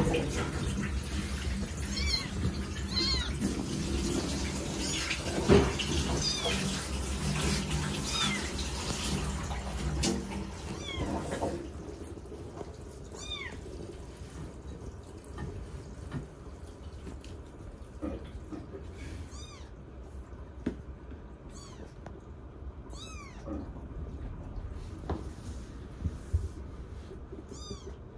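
A very young kitten mewing again and again in short, high, falling cries, a few seconds apart. The cries sit over a steady background noise that drops away about twelve seconds in.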